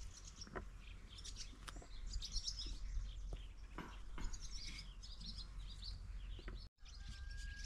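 Small songbirds chirping and twittering, with a few soft ticks of a knife cutting potatoes.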